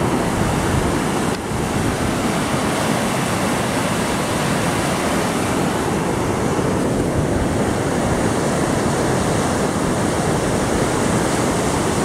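Steady rushing of a river swollen with snowmelt, running fast over rapids.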